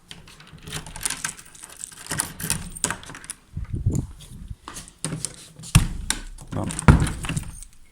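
Keys jangling and a door lock and door being worked: a run of metallic clicks and clatter, with two louder thumps near the end.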